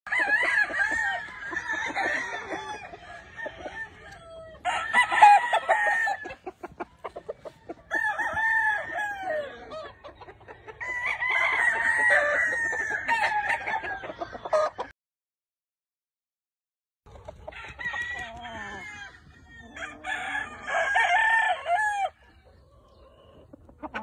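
Gamefowl roosters crowing, about six crows one after another, with short clucks between them. The sound cuts out completely for about two seconds after the middle.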